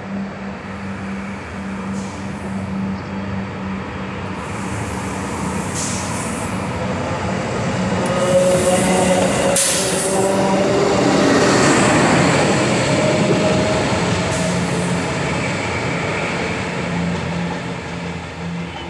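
Class 628 diesel railcar approaching and passing close by. Its engine and wheels on the rails grow louder to a peak about ten seconds in, the engine pitch drops as it passes, and then the sound fades as it moves away.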